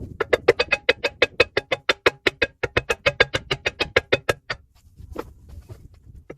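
Rapid, evenly spaced metallic knocks with a ringing pitch, about seven a second for some four seconds, then a few scattered knocks: a tool working at rusted-in brake caliper bracket bolts.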